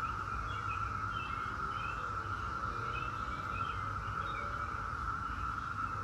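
Chorus of Brood X periodical cicadas: a steady, unbroken drone, with a few short bird chirps over it.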